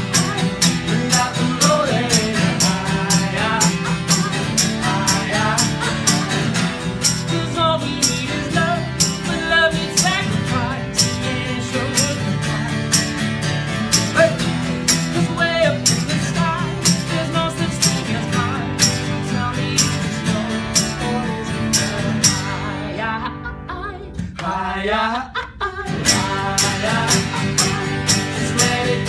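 Live acoustic rock song: two acoustic guitars strummed, with a steady hand-percussion beat and male singing. About 22 seconds in, the percussion drops out for a few quieter seconds before the full band comes back in.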